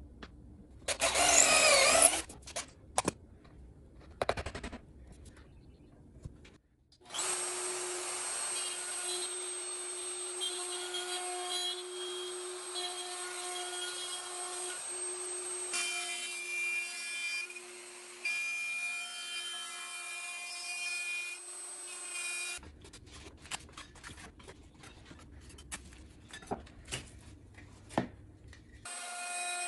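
Plunge router running at steady speed while cutting a circle in a board, a steady whine with several fixed tones, broken by edits. A brief loud noise sounds about a second in, and clicks and handling noises follow near the end.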